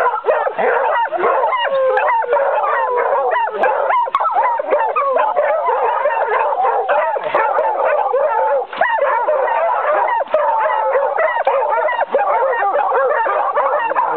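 A pack of hunting hounds baying and yelping all at once in a dense, unbroken chorus as they crowd over a wild boar brought down at the end of the chase.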